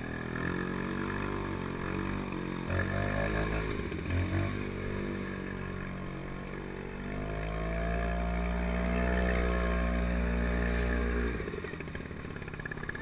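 Villiers 9E single-cylinder two-stroke engine of a Pengor Penguin amphibious ATV running while the vehicle is afloat. The engine speeds up about seven seconds in, holds a steady higher pitch for a few seconds, then drops back near the end.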